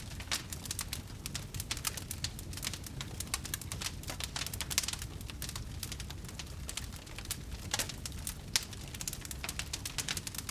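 Large wood fire burning: a dense, irregular crackle of pops and snaps over a low steady rumble of the flames, with a few sharper pops around the middle and toward the end.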